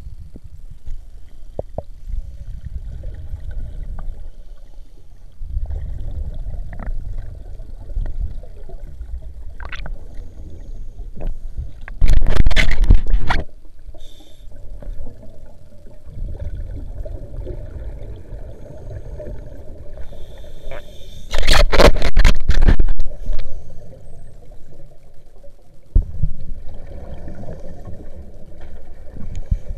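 Underwater audio during a scuba ice dive: low rumbling water and handling noise with scattered clicks, broken twice by loud rushes of exhaled bubbles from a scuba regulator, each lasting over a second, about twelve seconds in and again about nine seconds later.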